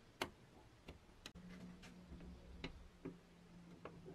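Light clicks and taps of painted pressed-steel toy airplane parts being handled and fitted together by gloved hands: about seven irregular clicks, the sharpest just after the start. A faint steady hum runs underneath from about a second and a half in.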